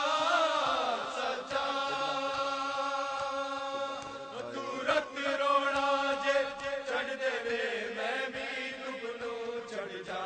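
Unaccompanied male voice chanting a noha, a Shia lament, in long held notes that bend in pitch now and then.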